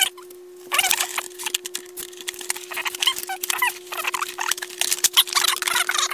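Plastic silverware drawer tray being handled and adjusted: a string of clicks, knocks and high squeaks from the plastic parts, over a faint steady hum.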